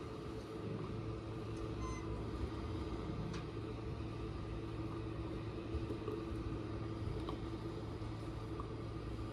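Small fishing boat's motor running steadily at low speed, a low even hum.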